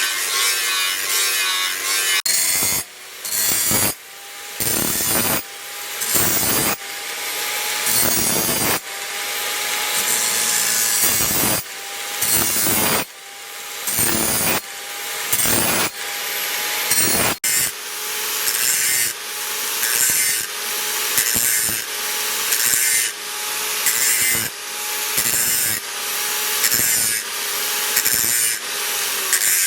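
A hand tool worked in steady back-and-forth rasping strokes, about one a second, with a faint ringing tone under the strokes.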